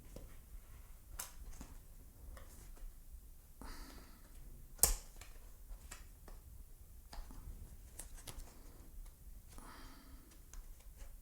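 Small retail box being opened and its packaging handled by hand: quiet scattered rustles and light clicks, with one sharp click about five seconds in.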